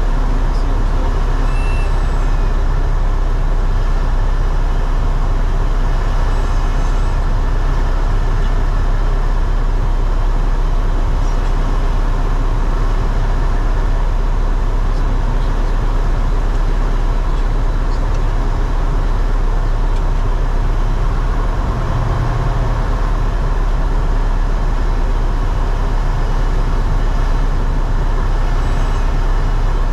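Cessna 172's engine and propeller running in a steady, loud drone, heard inside the cabin, as the plane descends on final approach to landing. The drone eases slightly about three-quarters of the way through.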